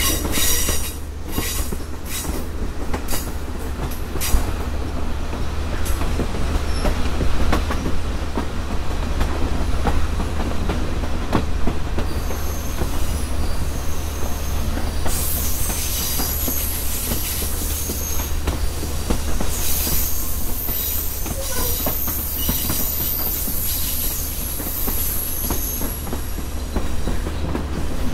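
Passenger train cars rumbling and rattling along the track, heard from an open vestibule, with sharp clicks in the first few seconds. From about twelve seconds in, thin high-pitched wheel squeal comes and goes as the train rounds a curve.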